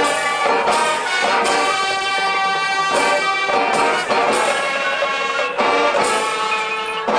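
High school marching band playing its field show: the brass holds loud, full chords, with several percussion accents cutting in.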